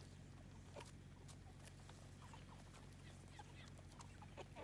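Faint, scattered short peeps and soft clucks from a flock of Cornish Cross broiler chickens, over a steady low hum.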